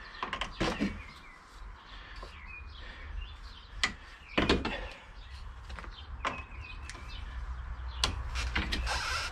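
Scattered metallic clicks and knocks of locking pliers clamping and twisting a Torx bit jammed in a screw hole of the car's strut top-mount plate, the loudest knock about halfway through.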